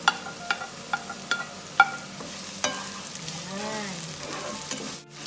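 Chopped onion sizzling in hot annatto oil in a frying pan, with sharp taps of a spatula about twice a second for the first two seconds or so, and one more a little later, as the onion is scraped off a plate into the pan and stirred. The frying hiss then carries on alone and drops out briefly near the end.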